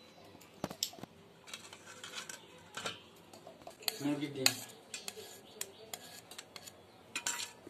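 Stainless steel bowls and utensils clinking and knocking against each other, in scattered separate clinks.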